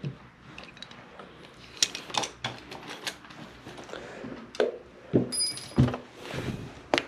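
Scattered clicks, taps and knocks from handling tools and the metal shower trim plate, with a few louder thumps and a brief high squeak about five seconds in.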